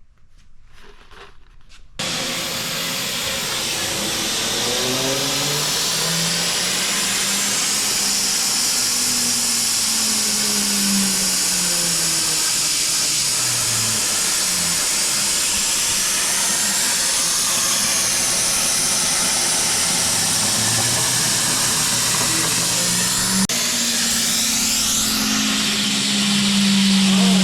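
CNC plasma cutter cutting metal: a loud, steady hiss of the plasma arc, starting abruptly about two seconds in, with low tones sliding up and down in pitch beneath it as the machine moves.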